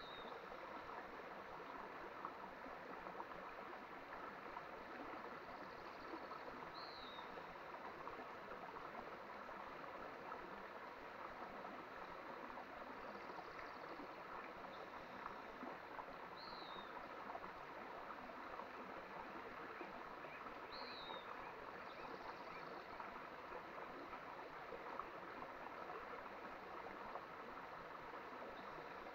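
Small mountain stream flowing steadily. A bird gives a short, high, downward-slurred call four times, several seconds apart.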